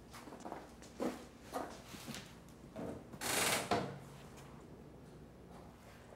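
A few soft knocks and bumps, then a louder scraping slide about three seconds in as a wardrobe is opened.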